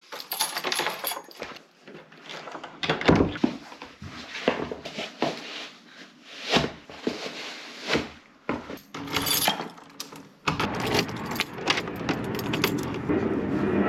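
A bunch of keys jangling and door handles and latches clicking, with clothes and shoes rustling in between. About ten seconds in, a steady background noise starts and stays.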